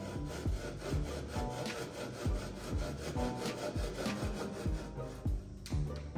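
Japanese-style pull saw cutting through a wooden chine laminate strip by hand, in quick, even back-and-forth strokes that stop shortly before the end.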